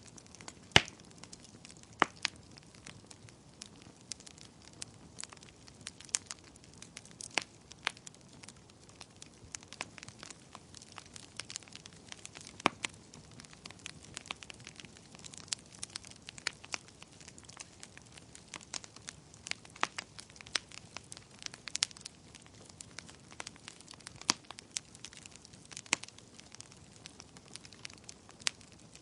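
Wood fire burning in a fireplace, crackling with irregular sharp pops and snaps over a soft steady hiss.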